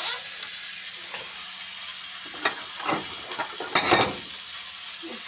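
Stirring and scraping of a mixture over a steady hiss, with a few louder strokes, the longest about four seconds in.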